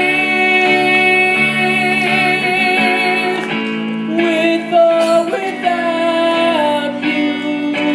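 Singing with guitar accompaniment. The voice holds long notes that step to a new pitch a few times.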